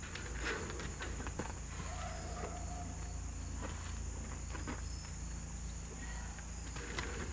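Quiet outdoor ambience with steady insect chirring, and faint scattered clicks and rustles of saddle tack and rope being handled.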